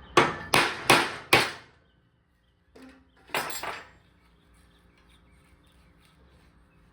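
Four hammer blows, about two a second, each ringing briefly, driving out a tapered pin from a milling vise's jaw, followed about three seconds in by a short metallic clatter.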